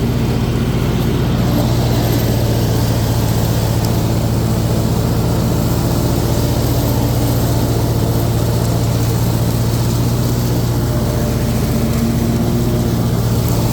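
Kohler 24-horsepower engine of a zero-turn riding mower running steadily at high throttle with the cutting blades engaged while mowing.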